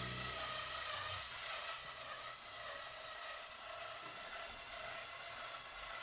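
Electric motor of a Lego BNSF train locomotive whirring steadily as it runs on plastic track, with a slightly wavering whine.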